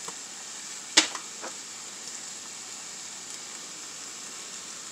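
Diced tomato and onion sizzling steadily in a frying pan, with a sharp click about a second in and a fainter one just after.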